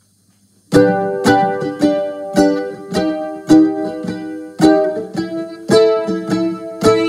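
Ukulele strummed in chords as a solo instrumental lead-in, starting about three-quarters of a second in, with a steady beat of about two accented strums a second.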